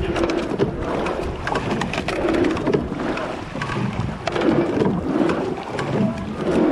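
Rowing eight under way: water rushing along the hull and oars working the water, swelling about every two seconds with each stroke, with short knocks from the oars and gates.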